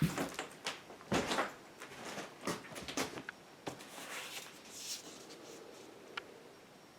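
Irregular knocks and clatters, about a dozen in the first four seconds, with a short hiss about five seconds in, then only faint room tone.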